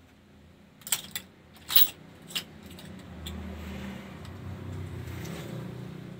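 Clothes hangers clacking and scraping on a rack rail as garments are pushed along it, four sharp clacks in the first two and a half seconds. A low rumble then swells up and holds.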